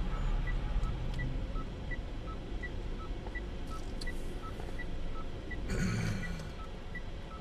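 Low engine and road noise inside a car, with a steady electronic ticking: a higher and a lower tick alternating, a little under three a second.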